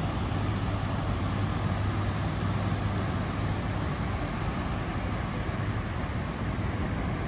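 Ocean surf breaking on a sandy beach: a steady wash of noise with a low hum underneath.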